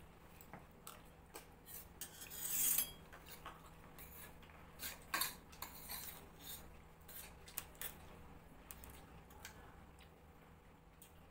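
Steel spoons clinking and scraping against stainless steel plates in a scatter of short, irregular clicks, with a longer, louder scrape about two seconds in.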